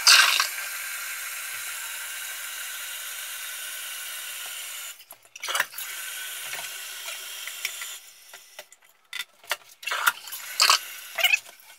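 Water running steadily in a toilet tank with a hiss, cutting off about five seconds in, then running again briefly. After that come light clicks and knocks of the plastic flush parts being handled in the tank.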